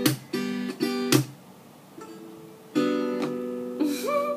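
Acoustic guitar strummed: a few quick chord strokes in the first second, a short gap, then a final chord struck and left to ring as the song closes.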